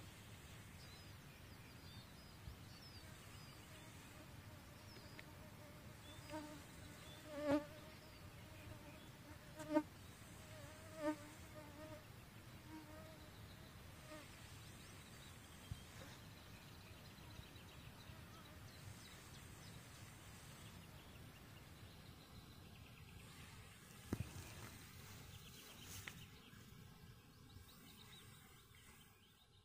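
A flying insect buzzing close to the microphone, swelling and fading several times as it passes, over quiet still-air lakeside ambience. A couple of faint knocks near the end.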